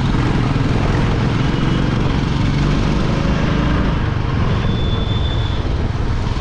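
Motorcycle engine running steadily while riding, heard from the rider's seat, with a low rumble and a rush of wind and road noise over it.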